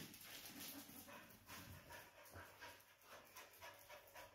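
A dog panting faintly in quick, even breaths.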